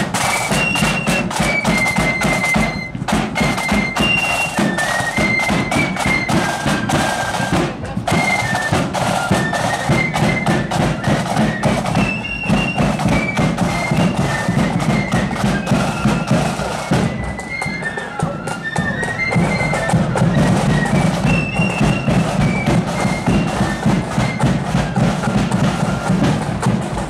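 Marching flute band playing a tune: high flutes carry a stepping melody over bass drum and side drums beating time.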